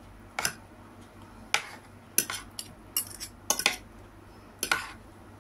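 Metal spoon and fork clinking against a plate as food is mixed and scooped: about eight short, sharp clinks at irregular intervals.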